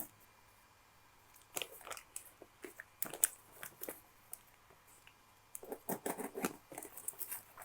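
Packaging of a parcel being opened by hand: irregular faint crackles and clicks of wrapping, with a busier run of them near the end.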